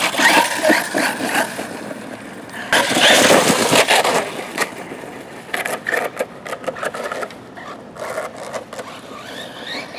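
Arrma Typhon 6S BLX radio-controlled buggy on oversized monster-truck tyres driving hard across dry leaves and dirt: its brushless motor whining up and down with the throttle over the rustle and scrape of the tyres. The loudest burst is about three seconds in as it accelerates, then the sound gets quieter and choppier as it drives off.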